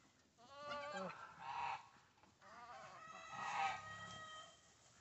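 Chickens calling: a short call and a brief cluck-like call in the first half, then a rooster crowing for about two seconds.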